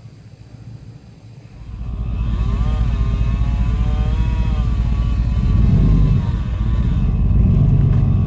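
A vehicle's engine running, heard from inside the cab: a loud low rumble that sets in about a second and a half in, with a wavering pitched sound over it for a few seconds.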